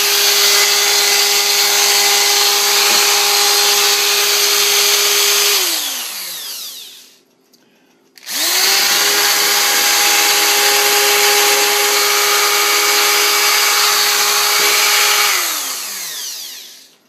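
Corded electric drill running at full speed with a steady whine. It is released and winds down to a stop, then is triggered again, spins up, runs, and winds down again near the end.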